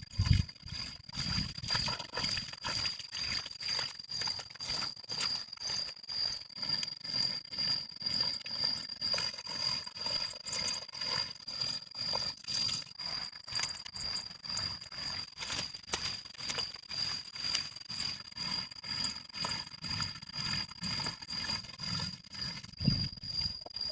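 Repeated scraping strokes at an even pace, about two a second, over a steady high-pitched tone.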